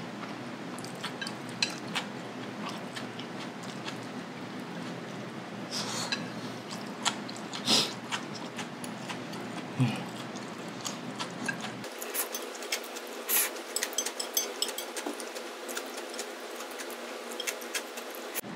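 Wooden chopsticks tapping and scraping on a ceramic plate in many short clicks while someone eats the last of the noodles, with a few louder breaths or slurps.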